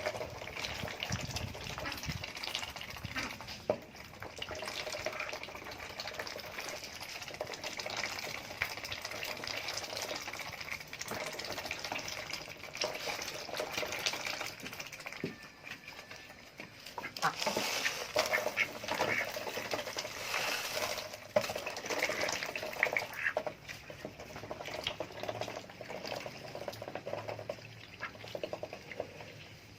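Adult domestic ducks quacking over and over, calling for food, louder and busier in the second half.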